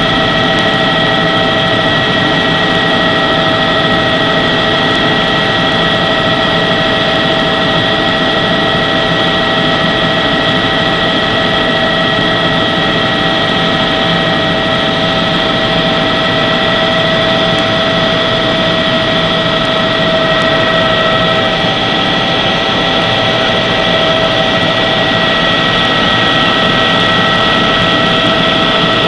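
Helicopter running steadily in flight: a constant whine of several steady tones over an even rush of engine and rotor noise.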